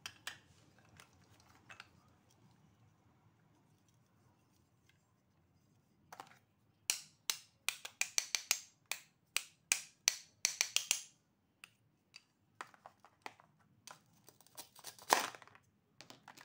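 Plastic toy food pieces and a plastic toy knife clicking and tapping against each other and the plastic tray as the pieces are cut apart and set down. The clicks come in a quick, dense run from about six to eleven seconds in, then as scattered taps, the loudest a brief scrape near the end.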